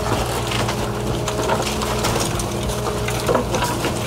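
40,000-pound excavator's diesel engine running steadily under load as the bucket pushes a wood-framed wall over, with wood and debris cracking and clattering down and a louder crash about three seconds in.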